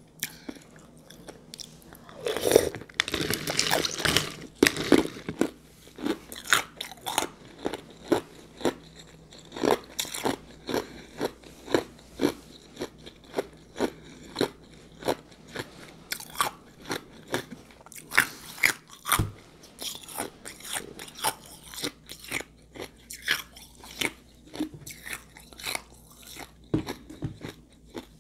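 Ice with juice being crunched and chewed, a steady run of crisp crunches nearly two a second, busiest a couple of seconds in.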